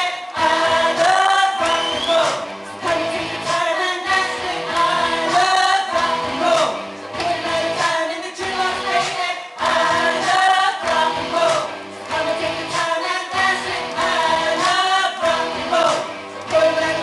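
A song with a lead vocal over instrumental accompaniment, running without a break.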